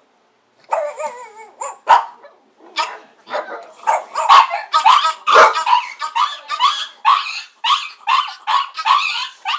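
Pet dogs barking in a rapid, unbroken run of barks that starts just under a second in, their alarm barking at people at the door.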